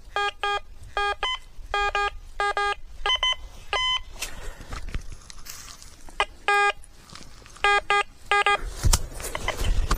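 Quest X10 Pro metal detector giving short electronic beeps, mostly in quick pairs, as its coil is swept back and forth over a buried target. The tone shifts between a lower and a higher pitch, with a pause of about two seconds midway. A sharp knock comes near the end.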